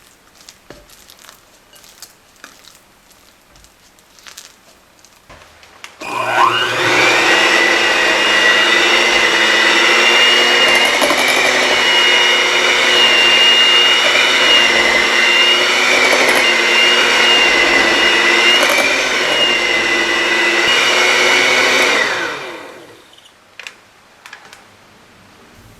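Small electric motor of a kitchen appliance running steadily at one speed. It starts abruptly about six seconds in and winds down a few seconds before the end, with faint clicks and handling before it.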